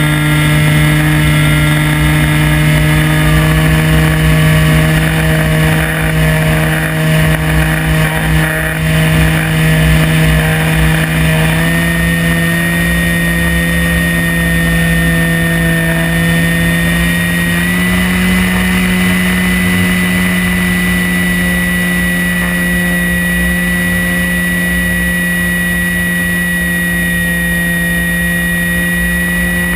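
Electric motor and propeller of an Axion Laser Arrow RC plane running steadily in flight, heard from the onboard camera over a low wind rumble. Its hum steps up in pitch twice, about twelve and eighteen seconds in, as the motor speeds up.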